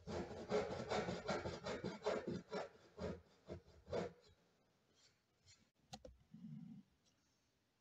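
Hand backsaw cutting through a small strip of wood in quick, even strokes for about four seconds. Then the strokes stop, with a few faint ones, and a single sharp knock comes about six seconds in.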